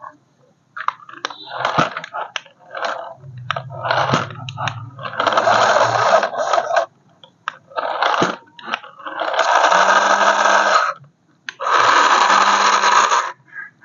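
Small electric motor of a toy remote-control car whirring in three bursts of roughly one and a half seconds each, with clicks and rattles of the toy in between.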